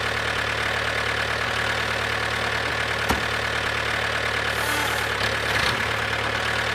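Small motor of a handmade toy tractor running steadily as it pulls a loaded trolley, an even mechanical hum with a single brief click about three seconds in.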